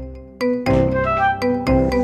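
Music: a melody of struck, pitched notes over a steady low bass. The notes fade, then a new phrase starts strongly about half a second in.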